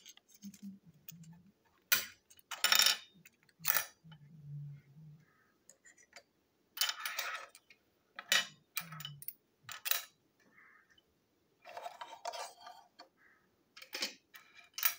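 Small plastic toy train parts clicking and clattering as they are pried apart and set down by hand, a series of separate sharp knocks and rattles with short pauses between.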